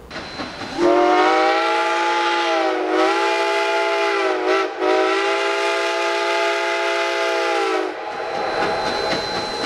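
A train whistle blowing one long, steady blast of about seven seconds, dipping slightly in pitch twice before it trails off.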